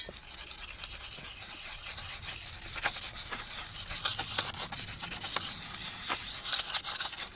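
Sandpaper rubbed by hand over a stamped steel car wheel in quick, uneven scratchy strokes, scuffing the old paint matte before priming.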